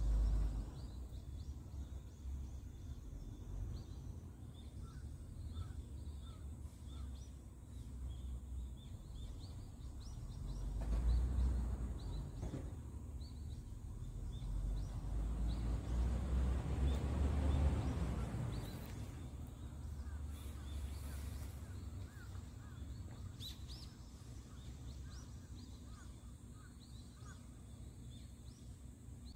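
Outdoor evening ambience: a low rumble that swells and fades twice, with small bird chirps scattered throughout.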